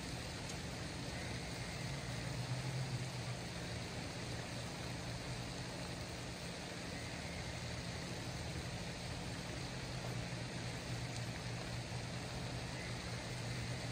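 Steady low hum over a constant even hiss of outdoor night ambience, unchanging throughout.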